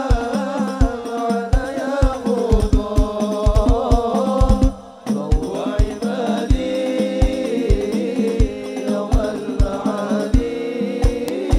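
Banjari sholawat: a male lead voice singing an Arabic devotional song through a microphone and PA, over rebana frame drums beating a fast steady rhythm. There is a short break about five seconds in before voice and drums pick up again.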